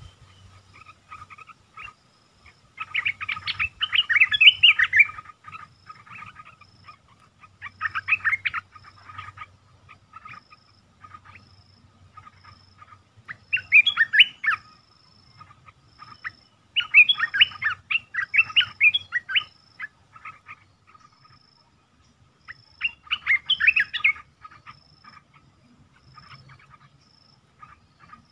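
Olive-winged bulbul singing in about five bursts of quick, bubbling song phrases, with pauses of a few seconds between them. The bird is a caged decoy used to lure and trap wild bulbuls.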